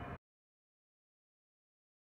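Dead silence, after a steady background noise cuts off abruptly just after the start.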